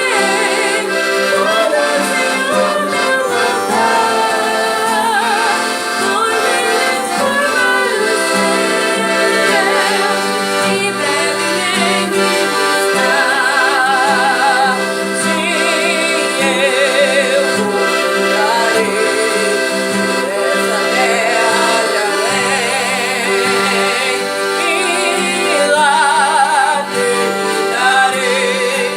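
Accordion playing a tune, continuous music with wavering sustained notes.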